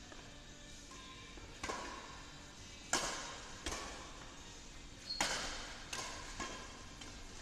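Badminton rally: a racket striking a shuttlecock about six times at uneven intervals, each a sharp crack with a short echo. The loudest hit comes about three seconds in.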